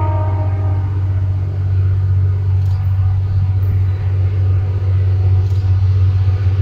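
EMD SD-39 diesel freight locomotive approaching, a steady low engine rumble that slowly grows louder. The tail of its horn blast fades out in the first second.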